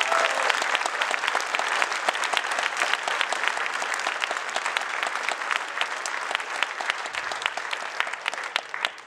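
A large audience applauding, many hands clapping at once, easing off slightly toward the end and dying away at about nine seconds.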